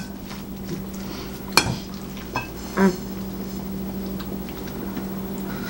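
Cutlery clinking and scraping on ceramic plates and a serving bowl of couscous, with one sharp clink about one and a half seconds in and a few lighter taps, over a steady low hum.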